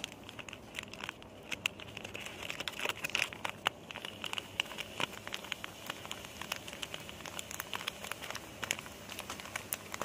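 Plastic zip-lock bag crinkling with irregular small clicks as fingers press its seal shut, over the fizzing of baking soda reacting with vinegar inside as the bag starts to foam.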